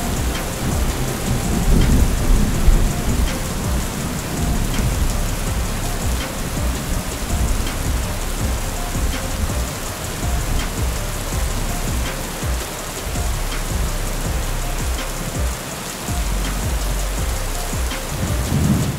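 Steady heavy rain with low thunder rumbling underneath, the rumble swelling about two seconds in and again near the end.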